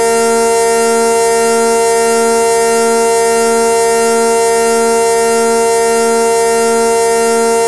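Synthesized ACA Hurricane siren, 8/12-port combination with echo, held at full speed after winding up. It sounds one steady multi-tone chord, with a slight low pulse about twice a second.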